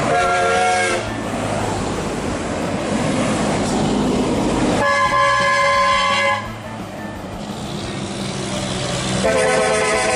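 Air horns on passing heavy trucks and a coach: three loud blasts of about one to one and a half seconds each, one near the start, one around the middle and one near the end, over the rumble of diesel engines and tyres going by.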